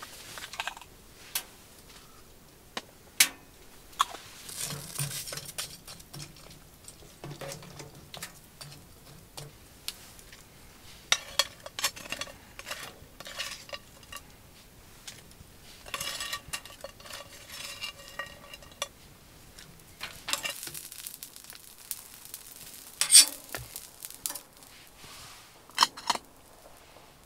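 A utensil stirring noodles in a metal cook pot on a wood stove, in short scraping runs with scattered sharp clinks of metal on metal, the loudest near the end.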